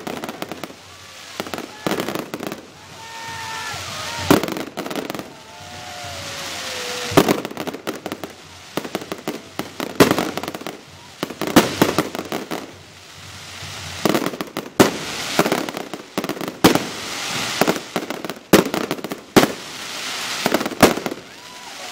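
Fireworks display: aerial shells bursting in a rapid, irregular series of sharp bangs, with a crackling hiss that swells between them.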